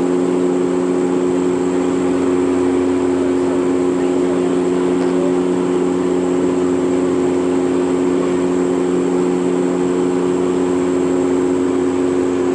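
Cabin drone of a Dash 8-Q400's Pratt & Whitney PW150A turboprops and six-blade propellers in cruise: a steady hum of several even tones over a constant rush of air, with a faint high whine above.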